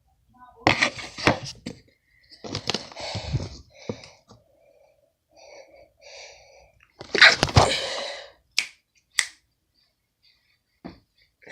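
A person's sneeze building up: breathy gasps and two short 'ah' sounds, then one loud sneeze about seven seconds in, followed by a few sharp clicks.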